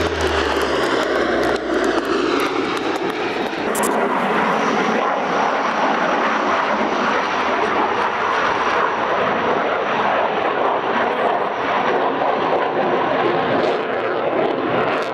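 Four-engine turboprop of an RAF C-130 Hercules flying past low, its propeller drone falling in pitch as it passes. About four seconds in, the sound cuts to the steady jet noise of a fighter jet in flight.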